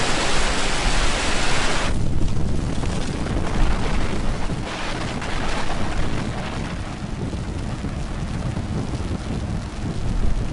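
Falcon 9 rocket's nine Merlin first-stage engines at liftoff, a loud continuous rumbling roar. About two seconds in, the upper hiss drops away suddenly, leaving the deep rumble.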